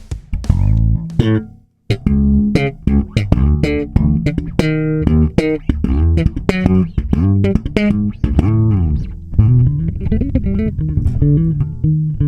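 Bass guitar playing a fast, rhythmic riff of plucked notes, several of them sliding up and down in pitch, with a brief break about two seconds in.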